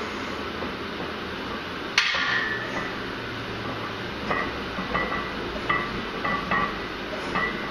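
Iron weight plates on a heavily loaded barbell clinking against each other and the bar sleeves as the bar moves through a bench press: one sharp metallic clank about two seconds in, then a run of lighter ringing clinks from about four seconds in.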